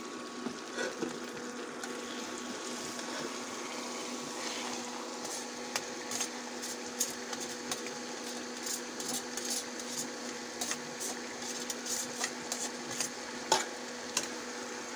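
Metal spoon scraping and tapping beef mince out of a stainless steel mesh strainer into an aluminium pot, a run of irregular clinks and clicks that grows busier after about five seconds. Under it, a faint sizzle from the hot oil and a steady low hum.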